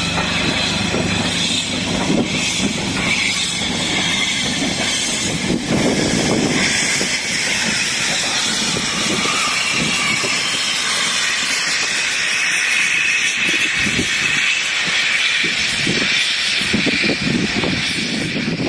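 LMS Coronation class steam locomotive 'Duchess of Sutherland' hissing steadily as steam blows from its open cylinder drain cocks while it moves slowly, with a low rumble and scattered clanks from the wheels and running gear.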